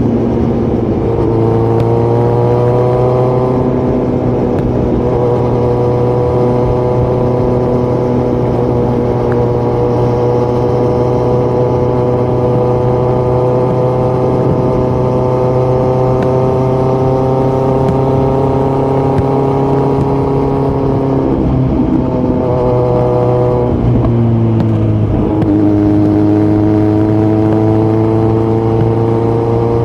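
Kawasaki Z900's inline-four engine running through a Yoshimura muffler on Delkevic headers with the dB killer removed, heard from the saddle while riding. The note climbs, then holds and slowly rises for a long stretch, drops as the throttle is rolled off about two-thirds of the way in, dips once more, and climbs again near the end.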